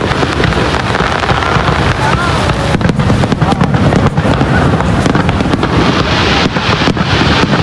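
Fireworks shells bursting in quick succession with sharp bangs and crackling, over the steady rush of the waterfall.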